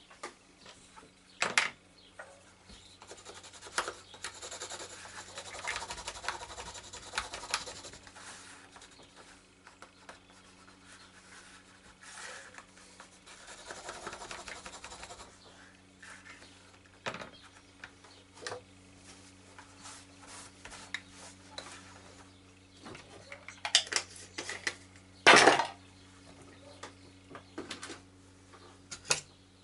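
Scratchy rubbing of a hand tool over the flesh side of a leather pouch, laying the fibres down with gum tragacanth, in spells of a few seconds. Tools knock and clatter on the bench now and then, the loudest knock about 25 seconds in.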